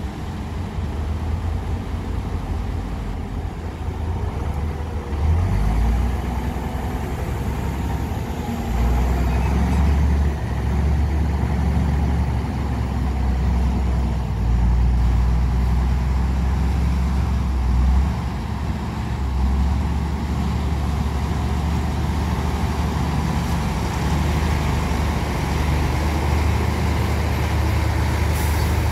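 Diesel engines of a crawler bulldozer and a tipping dump truck running together, a deep steady rumble that swells and eases several times as the machines take and drop load.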